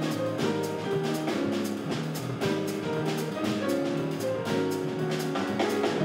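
Jazz piano trio playing live: grand piano, electric bass guitar and a Tama drum kit, with cymbal strokes keeping a steady time.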